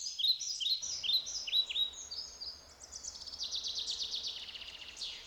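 Birds singing: a series of high, quick chirps that sweep downward, several a second, then a fast high trill from about halfway in.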